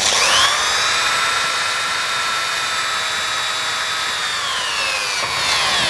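Power drill with a 2 mm bit boring a pilot hole through a metal motor-mount plate. The motor whine rises as it spins up, holds steady for about four seconds, then falls away as the drill is stopped near the end.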